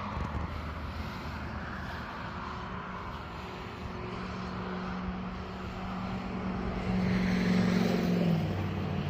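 A passing engine's steady drone that grows louder and drops slightly in pitch near the end as it goes by.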